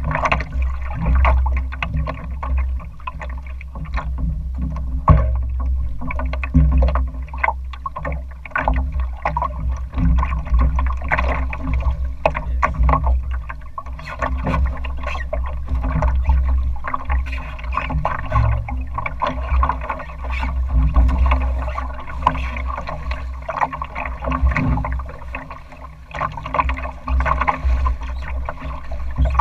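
Choppy water splashing and slapping against the hull of a Northeaster Dory sailing along, with a steady low wind rumble on the microphone.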